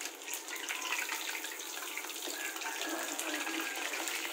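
Chicken pieces deep-frying in hot oil in a wok: a steady sizzle full of fine crackling.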